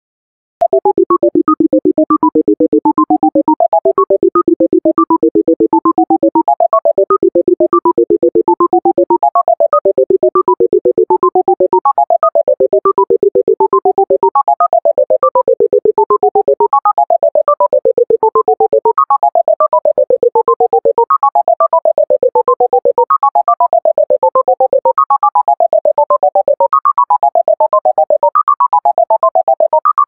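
Bubble sort sonification: a rapid stream of short synthesized beeps, one per comparison, with each beep's pitch set by the value of the bar being compared. About half a second in it starts; each pass steps downward in pitch and ends on a steady low run of notes, with a brief break between passes, every two to three seconds. The passes grow shorter toward the end.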